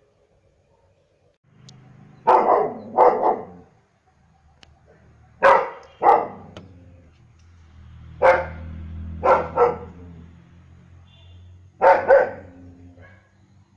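A German shepherd barking: about nine loud barks, mostly in quick pairs, with pauses of a couple of seconds between the groups.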